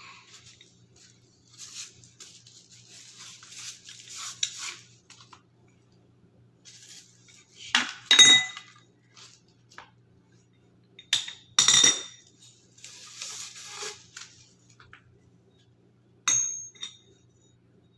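Metal tubes of a floor-standing phone holder stand clinking as they are handled and fitted together: two loud clanks that ring briefly, a lighter clink near the end, and softer handling noise in between.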